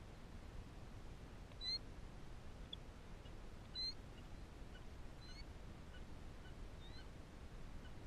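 Killdeer calling: two loud, short, high notes with a slight upward slide, about two seconds apart, with fainter short high chirps scattered through, over a steady low background rumble.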